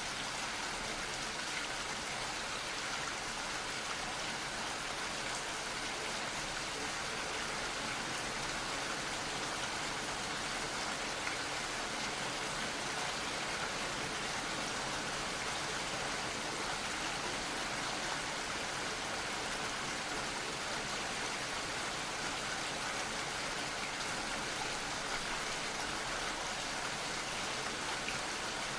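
Gentle rain falling steadily, a soft even hiss of drops with no breaks.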